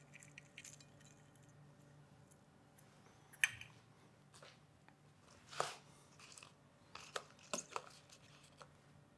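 Faint, scattered light crunches and clicks of puffed rice being crumbled and sprinkled by hand onto plates, with a few small clicks from containers being handled; the clearest come about three and a half and five and a half seconds in, and a quick cluster near the end.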